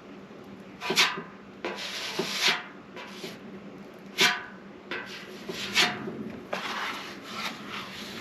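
Bondo body filler being spread over a dent on a motorcycle gas tank: the applicator scrapes across the tank in a series of strokes about a second apart, some short and sharp, some longer drawn-out smears.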